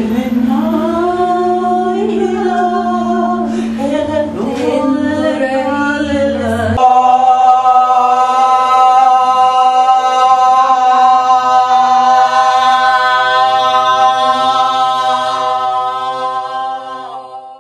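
Unaccompanied singing: a voice glides over a steady low drone, then from about seven seconds in one long note is held and fades out near the end.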